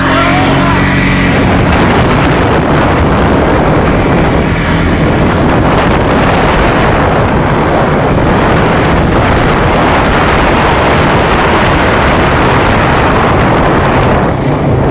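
Quad bike engine running while riding, with wind rushing over the microphone.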